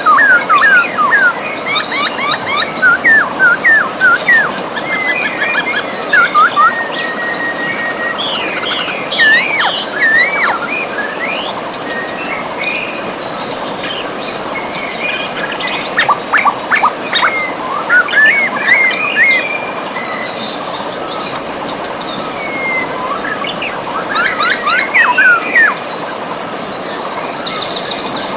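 A river's steady running water with several songbirds chirping and singing over it, in quick rising and falling phrases that come in bursts, thickest near the start, around the middle and near the end.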